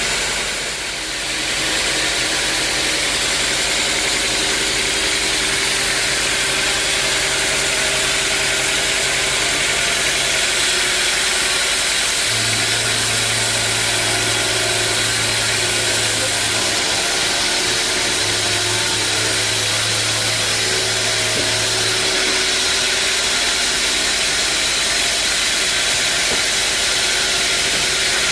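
Sawmill machinery running steadily with a constant hiss and hum. A deeper hum comes in about 12 seconds in, drops out briefly, and fades again about 22 seconds in.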